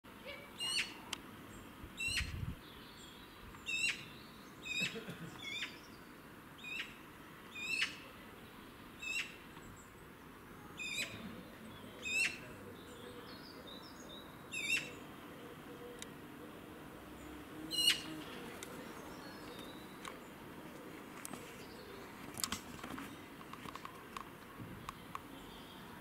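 Eurasian magpie giving short, harsh, rattling calls, about a dozen of them, repeated every one to two seconds and stopping after about eighteen seconds, with a few faint ticks later on.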